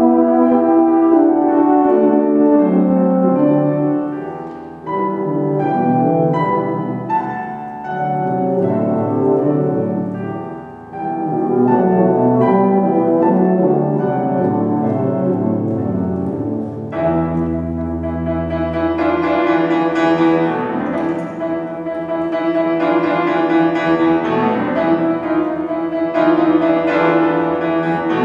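Tuba and euphonium playing a duet with piano accompaniment in classical style. The brass lines move through quick notes at first, then about two-thirds of the way in settle into held chords over a sustained low tuba note, with the piano brighter on top.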